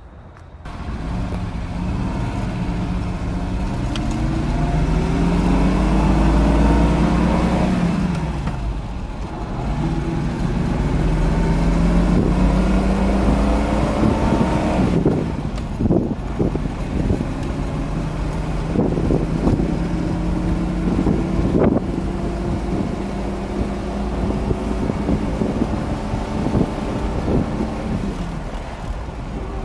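Mercedes-Benz 220S straight-six engine accelerating, its pitch climbing and then dropping at gear changes about eight and fifteen seconds in, before settling into a steady cruise. Heard from inside the cabin with the soft top up, over road noise.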